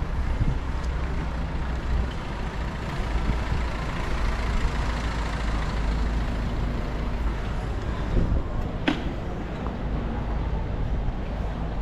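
City street traffic: motor vehicles running with a steady low rumble and general road noise. A single sharp knock is heard about nine seconds in.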